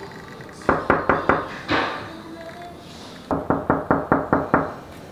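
Knocking on a door: four knocks, then after a pause of about two seconds a quicker run of seven.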